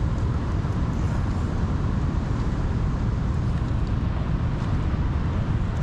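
Wind buffeting the microphone outdoors: a steady, rumbling noise heaviest in the low end, with a fainter hiss above it.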